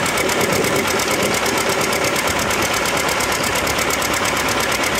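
Antique farm tractor engine running steadily with a fast, even beat.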